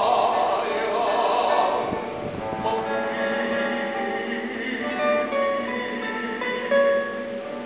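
Kundiman song for tenor and classical guitar: the tenor's held sung note, wavering with vibrato, ends about two seconds in, and the classical guitar then plays on alone in plucked single notes and chords.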